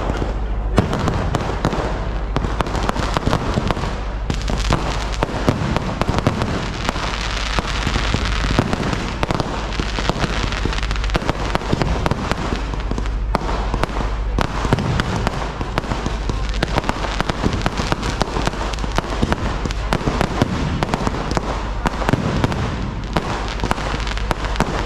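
Fireworks display firing a dense, continuous barrage: rapid bangs and crackling pile on one another without a break.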